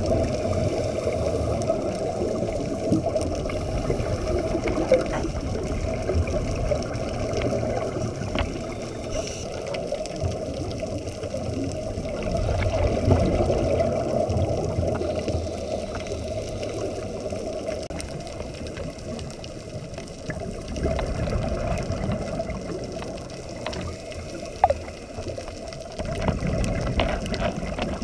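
Scuba regulator breathing and exhaled bubbles, heard muffled through an underwater camera housing: a steady low bubbling rush that swells every several seconds, with one sharp click near the end.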